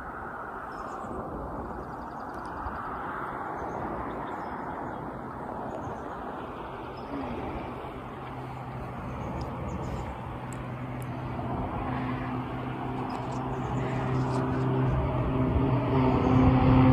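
A steady engine hum that comes in about halfway through and grows steadily louder, as of a motor approaching, over a continuous outdoor rush.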